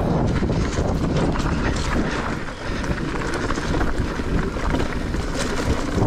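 Wind buffeting the microphone over the rumble and rattle of a Giant Reign E+ electric mountain bike riding fast down a dirt trail, with frequent knocks from bumps. The noise eases briefly about two and a half seconds in.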